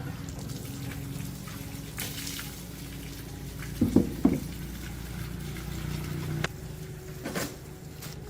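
Water trickling and sloshing over a low steady hum, with a few short knocks about four seconds in and again near the end.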